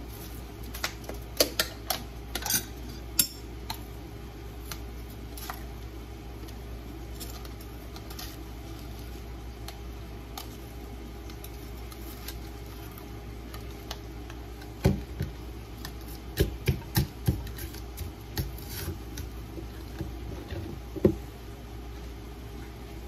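Chicken pieces frying in a skillet with a steady sizzle, broken by sharp clinks and taps of a metal spoon against a cup and cookware: a few in the first seconds, then a cluster from about fifteen seconds in.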